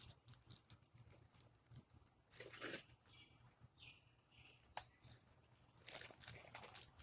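Faint handling noise: brief crinkling and rustling with scattered small clicks as the solar panel's mounting brackets and hardware are handled.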